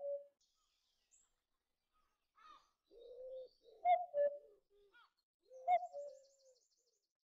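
Common cuckoo (Cuculus canorus) giving its two-note 'cu-coo' call twice, each a higher note dropping to a lower one, about four and six seconds in.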